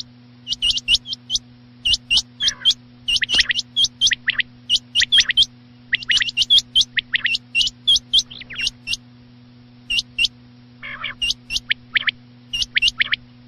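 Quail calls: short, sharp, high notes in quick pairs and triplets, repeated over and over over a steady low hum. This is a recorded quail-call lure of the kind hunters play at night.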